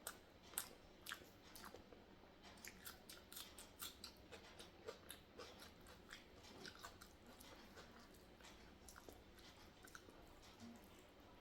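Close-miked chewing of sambar rice and raw onion salad: a long run of short wet mouth clicks and smacks, a few sharper ones in the first two seconds.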